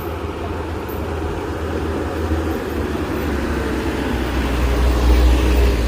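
Heavy vehicle engine running on the road, growing steadily louder and loudest about five seconds in, as it passes close by.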